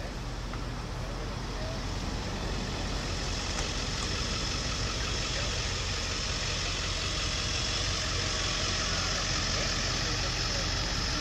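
Steady street noise of motor vehicles with an engine running at idle, a constant low hum under an even hiss, and faint voices in the background.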